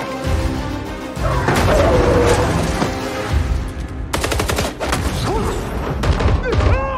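Action-film sound mix of gunfire and heavy impacts over a dramatic music score, with a rapid run of shots about four seconds in.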